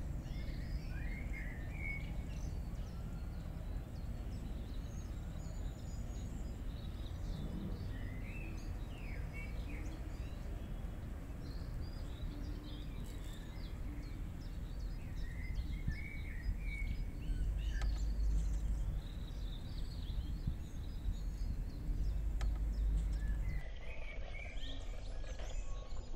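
Outdoor ambience: small birds chirping in short, scattered calls over a steady low rumble.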